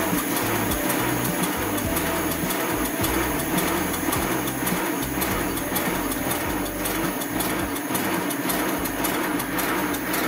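Miniature 0-6-2 live steam locomotive model running with its wheels turning while it stands in place, giving a fast, even mechanical clatter of its motion.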